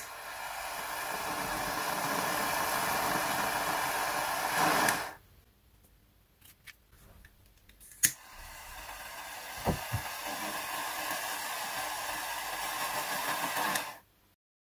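A torch lighter clicks alight and its jet flame hisses steadily under an LED bulb's board, heating the solder of a faulty SMD LED to free it. The hiss stops about five seconds in, a second click relights it near eight seconds, and it hisses again until near the end, with two light taps around ten seconds.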